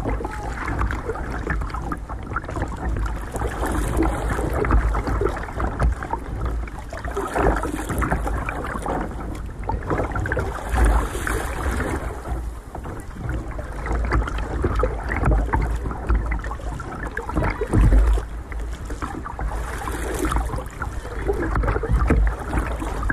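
Sea water sloshing and lapping against a plastic sit-on-top kayak's hull, with wind buffeting the microphone in uneven low gusts.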